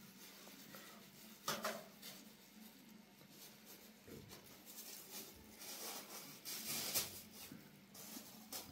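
Thin plastic bag rustling and crinkling in faint, intermittent bursts as it is handled and opened.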